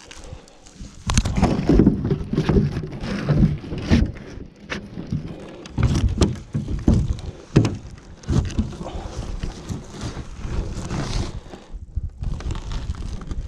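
Fish being worked out of a gillnet on a boat's deck: irregular thumps and knocks against the hull with rustling of net and gloves, starting about a second in.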